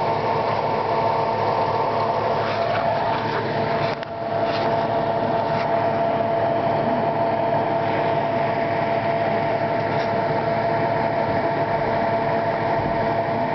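Steady mechanical hum holding a few fixed tones, with a brief dip about four seconds in.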